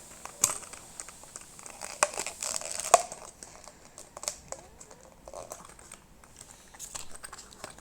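Plastic packaging crinkling and rustling in short spurts, with scattered sharp clicks, as a small Mighty Beanz package is opened.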